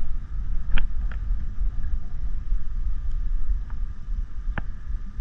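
Wind buffeting the microphone: a steady low rumble, with a few light clicks scattered through it.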